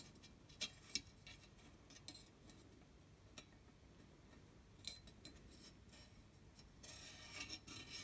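Faint clicks and scrapes of fingers working at the baffle plate in the end of a chrome motorcycle silencer, trying to ease the baffle out, with a longer rubbing scrape near the end.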